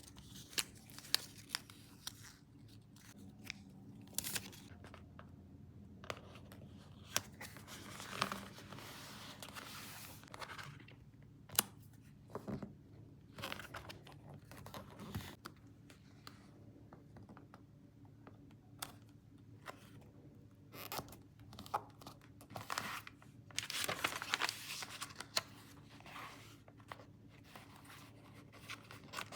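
Paper being handled at close range: irregular tearing, crinkling and rustling, with scattered sharp clicks and taps. A longer stretch of rustling comes in the last third.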